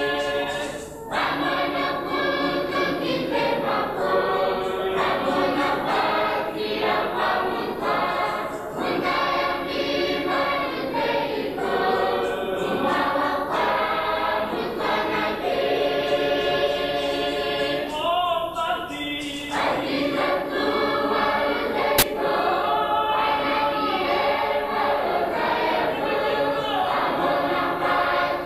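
A group of voices singing together in chorus, a sustained hymn-like song, with one brief sharp click about three-quarters of the way through.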